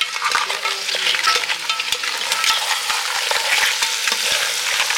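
Crabs being stir-fried in a pot of hot garlic sauce: steady sizzling, with many clicks and scrapes as a spatula turns the crab shells against the pot.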